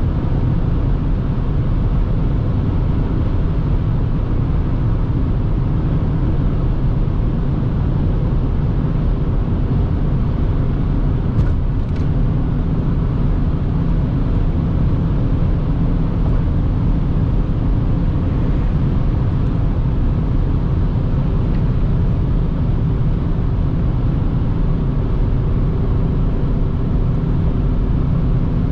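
Steady cabin drone of a BMW X5 E70 3.0d, a straight-six diesel, cruising at about 180 km/h: wind and tyre noise over a low, even engine hum. Two faint clicks come about twelve seconds in.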